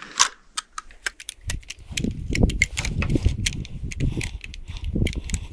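Small metallic clicks and scrapes of cartridges and the action of a Yugoslavian M95M straight-pull rifle being worked by hand, as a jammed round is pushed down into the magazine, with a low rumble underneath from about a second and a half in.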